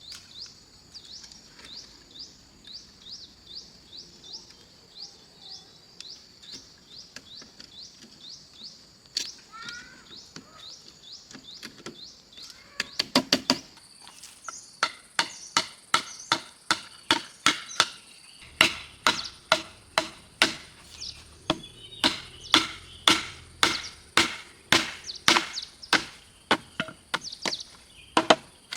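Rhythmic high chirping, about three a second, through the first half. From about halfway on, a steady run of sharp chopping strikes on wood, roughly one and a half a second, which are the loudest sound.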